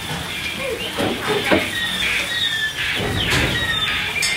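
Sound effects of the Flooded Mine shooting dark ride: a busy jumble of short high electronic chirps and squeals. Noisy bursts come about a second in and again about three seconds in.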